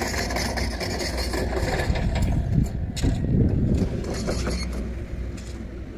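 A mini excavator's diesel engine runs steadily on a construction site. Gravel crunches and scrapes over it, heaviest in the middle, with a sharp knock about three seconds in.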